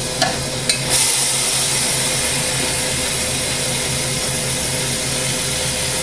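Hydrogen-oxygen glassworking torch hissing steadily on a quartz tube turning in a glass lathe, with a low steady hum underneath. Two short ticks come near the start, and the hiss gets louder about a second in.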